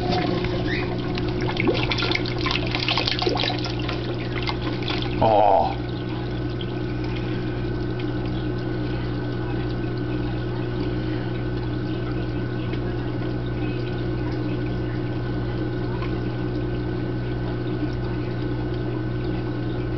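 AquaClear 802 aquarium powerhead running with a steady electric hum as it pushes water up through a DIY fluidized sand-bed filter. Water splashes and gurgles for the first few seconds as the flow starts, then settles to a faint rush under the hum.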